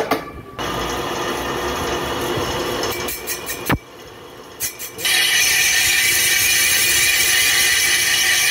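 Lathe boring out the inside of a new sleeve pressed into a motorcycle's rear brake hub, a steady ringing cutting sound. It stops with a falling tone about four seconds in, then resumes louder and higher-pitched.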